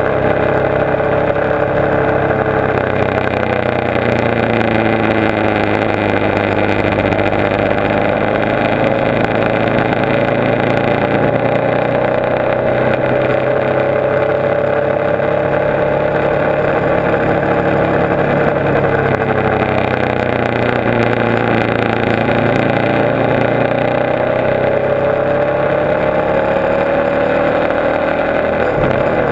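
Motorcycle engine running at road speed, its note slowly falling and rising several times as the throttle is eased and opened, over steady wind and road noise.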